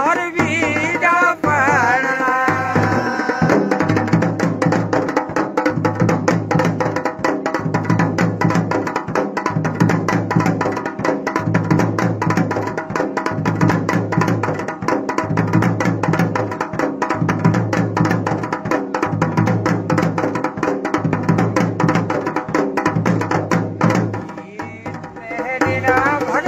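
Dhol and damau drums playing a fast folk rhythm: dense rapid strokes over a deep beat pattern that repeats about every two seconds. A singing voice joins briefly at the start and again near the end.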